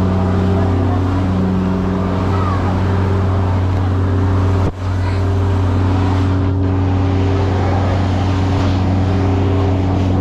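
A large engine running steadily at a constant speed, a deep even drone with a steady hum above it. The sound dips out for a moment about halfway through.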